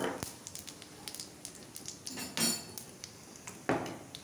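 Spatula knocking and scraping against a kadai (wok) of spices frying in hot oil, with two louder clatters, one past the middle and one near the end, among many small clicks.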